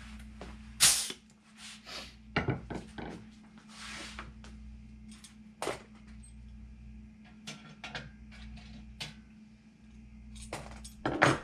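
Irregular clicks and clanks of a rivet squeezer and its steel sets being handled and set down on a wooden workbench while the sets are swapped, with the sharpest knocks about a second in and near the end. A steady low hum runs underneath.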